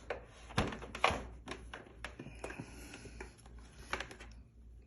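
Light clicks and knocks of a plastic foot massager being handled and turned over, several irregular taps with the strongest about a second in.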